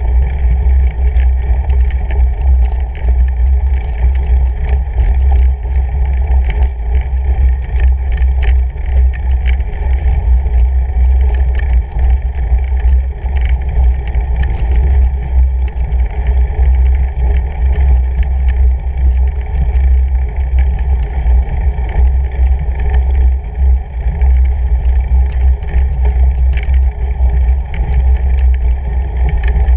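Fat bike riding over packed snow, heard through a camera mounted on the bike: a loud, steady low rumble from the tyre and frame vibration, with many small clicks and rattles.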